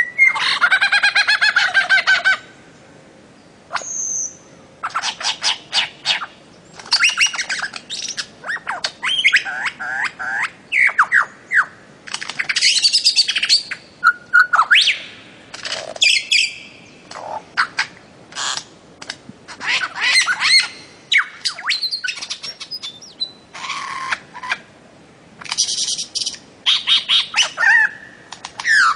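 Bird calls one after another: a mix of squawks, chirps and gliding whistled notes, coming in quick bursts with short pauses between them.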